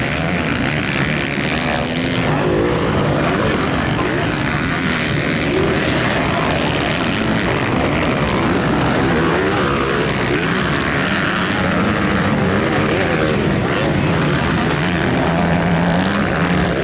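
Several motocross bikes racing, their engines revving up and down over one another in a continuous mixed drone.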